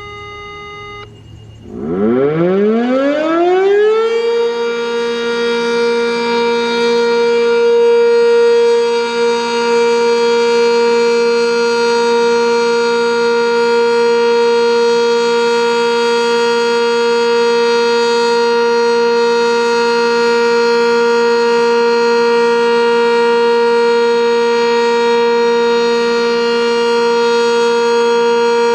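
Sentry 10V outdoor warning siren winding up, its pitch rising over about two seconds, then holding one loud, steady tone: the siren's alert signal.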